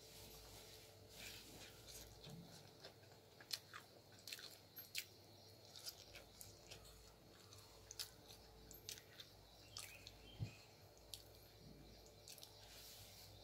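Faint, close-up chewing of crisp uthappa, with irregular crunches and mouth clicks scattered throughout; one crunch stands out about three and a half seconds in and another about ten seconds in.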